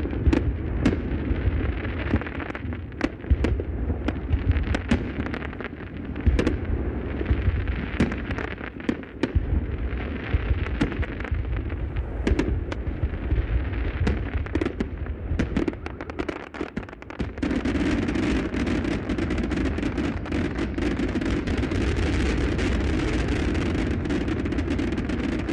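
Fireworks display going off: rapid sharp bangs and crackles over a low rumble. About two-thirds of the way through, the separate bangs give way to a steady, dense noise.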